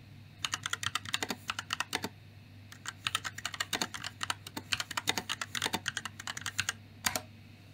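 Typing on a laptop keyboard: quick runs of key clicks with a short pause after about two seconds, then a longer run and one last separate keystroke near the end.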